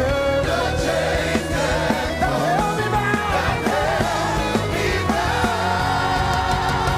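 Worship music: singing over a band with a steady, heavy bass line.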